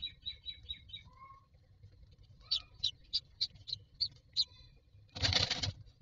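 Common myna nestlings giving quick runs of short, high-pitched begging cheeps while being fed. A little after five seconds in comes a short, loud flutter of the adult's wings in the nest box.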